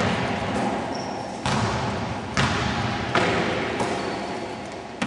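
A basketball bouncing on a gym floor, four or five separate bounces that echo through the large hall, with a couple of brief high squeaks between them.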